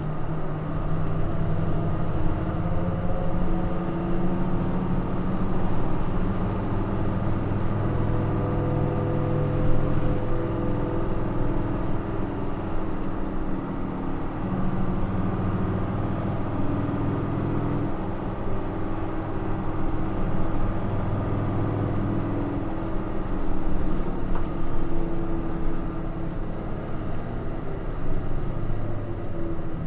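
Diesel engine of a Nissan Diesel JP city bus (KL-JP252NAN) heard from inside the cabin, running hard under acceleration. Its note rises and falls several times as the bus speeds up and changes gear.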